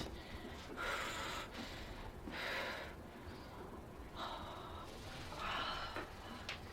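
A person breathing deeply through the nose and mouth: about four soft, hissy breaths, one every second and a half or so.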